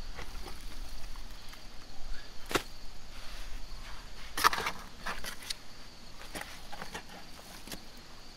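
Steel shovel blade striking and scraping into soil as dirt is dug out of a pit: a few sharp strikes, the loudest about two and a half and four and a half seconds in, with smaller scrapes after. A steady faint insect hum runs underneath.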